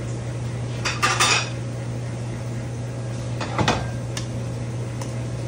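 Metal tongs and stainless steel bowls clattering: short clinks about a second in and again around three and a half seconds, over a steady low hum.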